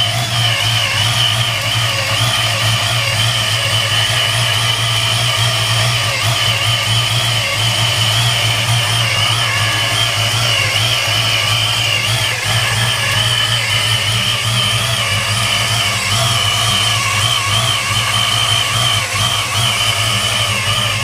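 1993 Mustang Cobra's 5.0 V8 idling steadily with a Vortech V1 S-trim centrifugal supercharger, a high, slightly wavering whine over the engine note. Besides the normal V1 sound, the owner suspects the noise includes a bad supercharger bearing, though he is not sure.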